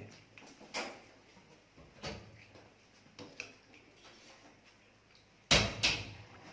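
Kitchen utensils and dishes clattering: a few light knocks, then two loud sharp knocks near the end, each with a brief ring.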